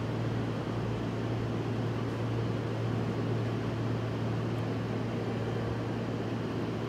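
Steady low hum over an even rumble of railway-station ambience, with no change in pitch or level.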